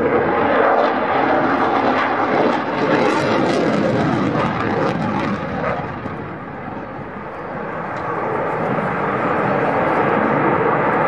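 Jet noise from a McDonnell Douglas F/A-18 Hornet's twin turbofan engines during a display flypast. The noise is continuous, drops in loudness about six seconds in, then builds back up.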